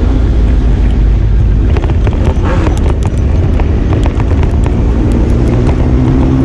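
Four-cylinder big-bike motorcycle engines running loud and steady, with pitch rising gently near the end as an engine revs up.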